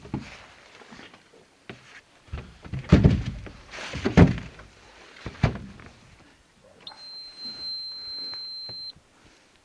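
Hollow knocks and thumps of gear being moved about in a motorboat's cockpit, the two loudest about three and four seconds in. Near the end, a steady high-pitched beep lasts about two seconds and cuts off.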